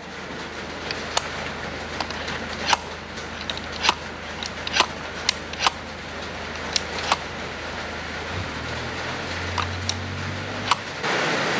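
Throttle mechanism of a Toyota 1UZ-FE VVTi drive-by-wire throttle body, fitted with a manual throttle lock, worked by hand: a series of sharp, irregular clicks from the linkage and butterfly, over a steady low hum.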